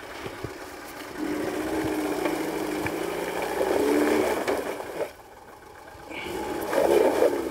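Lada Niva 21213's four-cylinder engine working under load as the car crawls up a rutted, cross-axled dirt track, its revs rising and falling: it builds from about a second in, drops off briefly about five seconds in, then picks up again near the end. A few sharp knocks come through, the first about half a second in.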